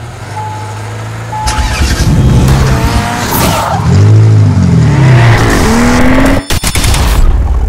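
Intro sound effect of a car: a couple of short electronic beeps, then an engine revving up and down with tyre squeal, broken by a burst of sharp clicks near the end.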